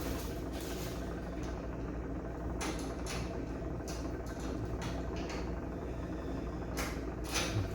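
A few short clicks and rattles of the negative cable being fastened to the generator's starter battery terminal, over a steady low hum.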